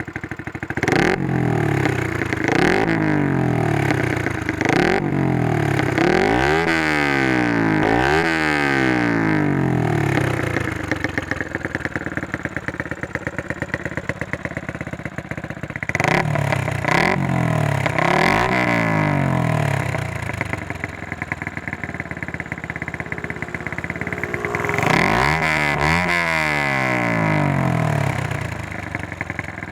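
Yamaha Sniper 150's single-cylinder four-stroke engine through a Proliner TR1 aftermarket exhaust, free-revved from idle. Three groups of rising and falling revs, with steady idling between them.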